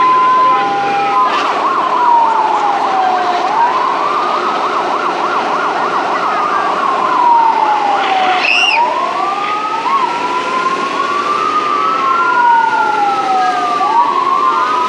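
Fire engine sirens wailing in slow rising and falling sweeps, more than one siren overlapping out of step. A fast warble tone runs under the wail for several seconds in the first half, and a short high chirp sounds about halfway through.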